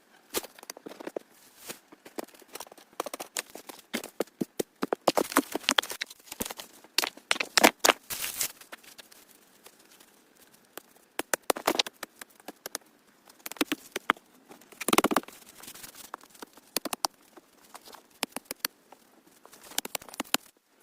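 Building work by hand: irregular clusters of sharp taps, clicks and crackling, with short pauses between.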